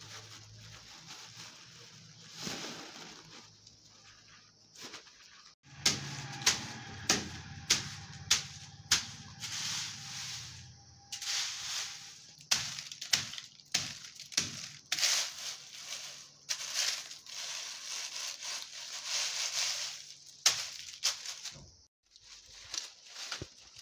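Dried vegetables being handled: a faint plastic-bag rustle at first, then from about six seconds in a stick stirring dry, brittle bean pods, with many sharp taps and crackling rustles.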